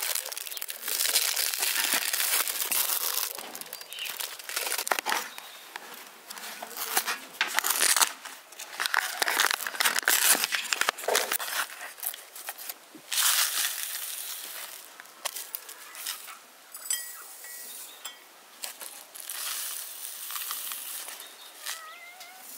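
Cardboard box of loose black tea being cut open with a knife, its packaging crinkling and rustling on and off, then dry tea leaves being shaken out into a porcelain teapot.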